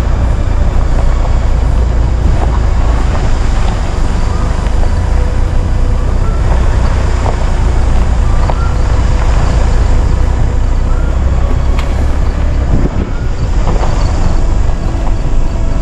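A loud, steady low rumble with a few faint short chirps over it.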